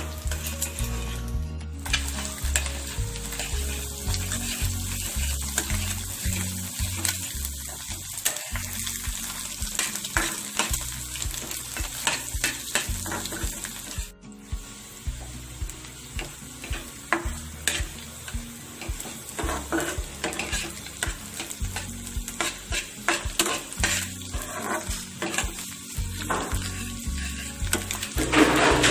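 Egg and shredded vegetables sizzling in hot oil in a kadai, with a metal spatula repeatedly scraping and tapping the pan as the egg is scrambled.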